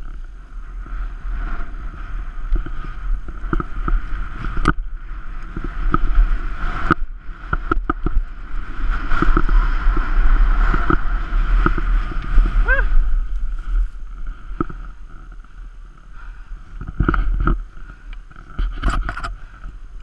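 Skis running and scraping over packed snow, with wind buffeting a helmet-mounted GoPro's microphone in a low rumble and irregular clicks and knocks from the skis; loudest in the middle, easing off after about two-thirds of the way through.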